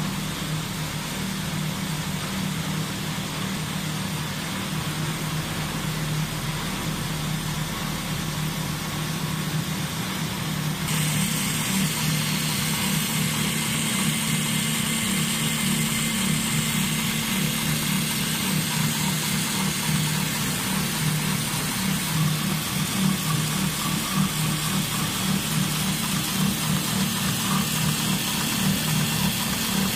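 Computerised hook-and-eye tape sewing machines with Juki sewing heads and vibratory bowl feeders running, a steady mechanical hum. It gets louder about eleven seconds in.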